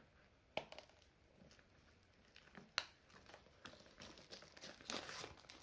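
Utility knife cutting plastic shrink wrap on a cardboard box: a few sharp clicks and scrapes of the blade, then faint crinkling of the plastic film that grows near the end.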